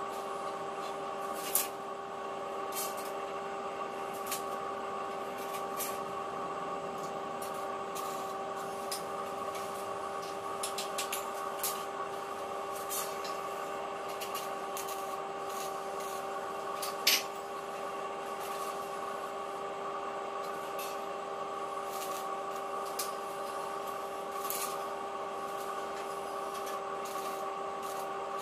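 Steady machine hum, with scattered sharp metallic clicks and taps as steel bars are handled and set in a welding jig.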